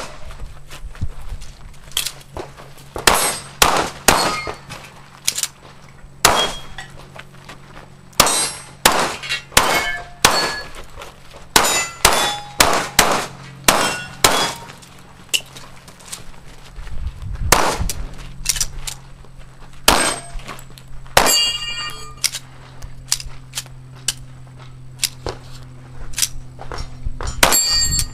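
Strings of rapid pistol shots, mixed with the ringing clang of steel target plates being hit.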